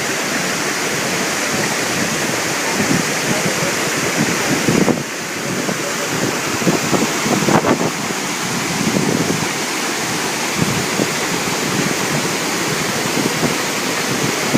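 Waterfall: a steady, loud rush of falling water, dipping slightly for a moment about five seconds in.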